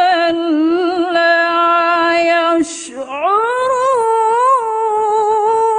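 A woman reciting the Quran in the melodic tilawah style, holding long ornamented notes. After a quick breath about three seconds in, her voice climbs to a higher pitch and holds it with wavering ornaments.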